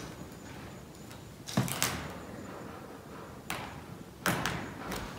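Footsteps on old wooden floorboards: four hollow knocks, two close together, then one more and another a little later.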